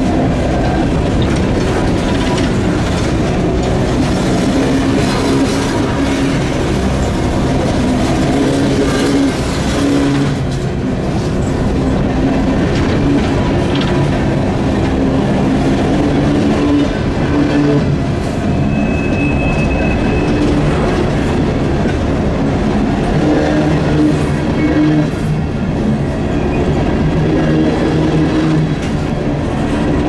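Empty CSX coal hopper cars rolling past at close range, their steel wheels rumbling and clattering steadily over the rail joints. A short high wheel squeal comes about two-thirds of the way through.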